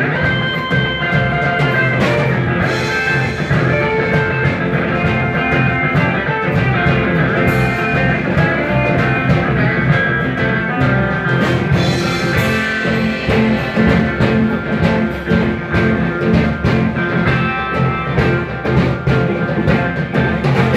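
Live rock band playing an instrumental passage: electric guitars over bass and drums, with a lead guitar holding long sustained notes on top.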